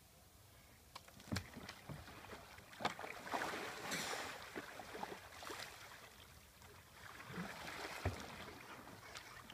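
Kayak Eskimo roll: water splashing and sloshing as the kayak goes over and comes back up, loudest about three to four seconds in, with smaller paddle splashes before and after.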